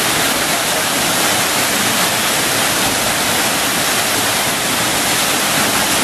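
Waterfall's falling water making a loud, steady rush.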